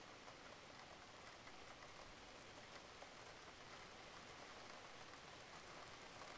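Near silence with a faint, steady hiss of noise.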